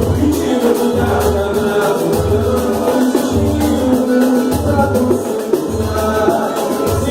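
Live samba (pagode) band playing, with singing. A deep bass beat lands about once a second under plucked strings and jingling, shaking hand percussion.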